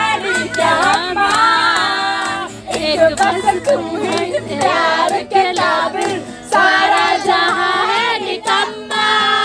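Several people singing a song together to a strummed acoustic guitar, with hand claps along to it.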